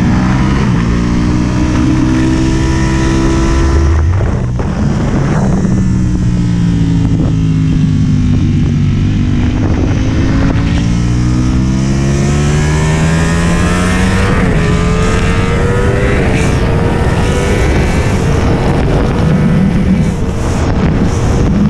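Motorcycle engine at speed, its pitch climbing repeatedly under acceleration and dropping sharply at gear changes and braking, heard from a camera mounted on the bike, with wind rushing over the microphone.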